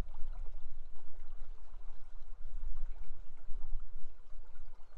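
Rushing river water: a steady, unbroken rush with a deep rumble underneath.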